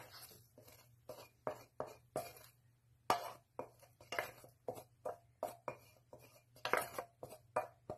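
Wooden spatula scraping and knocking against a stainless steel pan in short, irregular strokes, a few a second, pushing cooked egg whites out of the pan.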